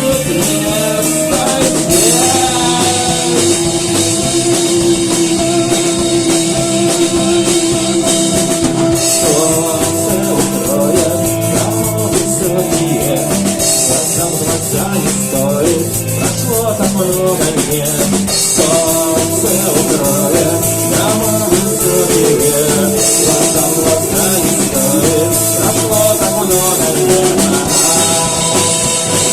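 Rock song with drum kit, guitar and a steady beat; a held vocal or melodic line runs over it.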